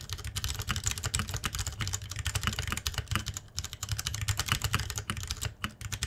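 Sound test of a compact mechanical keyboard fitted with Matrix PBT keycaps: fast typing, a dense, uneven clatter of keystrokes with a couple of short pauses.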